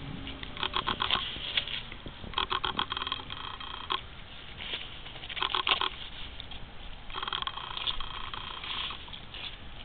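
Dog chewing fresh sweet corn on the cob, crunching kernels and cob in about five bouts of rapid crackly clicks, with short pauses between.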